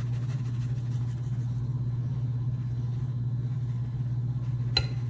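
A steady low hum runs throughout, with a single short knock near the end.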